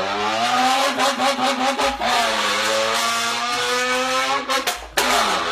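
A person imitating a revving sports-car engine with the voice: a buzzing engine note that climbs, then holds steady, breaks off briefly near the end and starts again.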